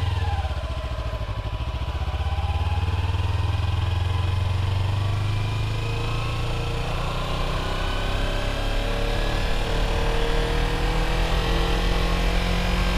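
Sport motorcycle engine running as the bike pulls away and rides on at low speed. Its pitch rises slowly through the second half as it gently gathers speed.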